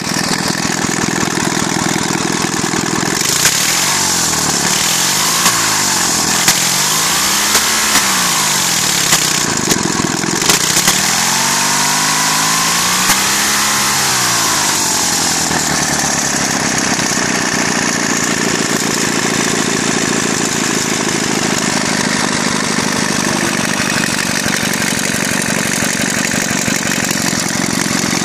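Home-built opposed-twin engine running on its first start-up, blipped up and down in rev three times, then once more in a longer rise and fall, with a short sharp noise in between. After that it settles to a steady idle.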